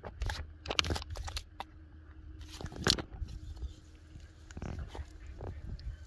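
A freshly caught carp flapping on wet sand, making irregular short slaps and thumps, the loudest about three seconds in.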